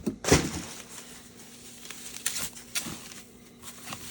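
Packaging being handled and rustled as an exhaust muffler is unpacked. A sharp rustle comes about a third of a second in and a few softer rustles follow later, over a faint steady hum.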